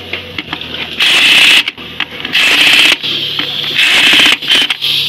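Hand ratchet wrench clicking fast in repeated bursts of about half a second to a second, three longer ones among shorter ones, as the nuts on a wheel hub are turned.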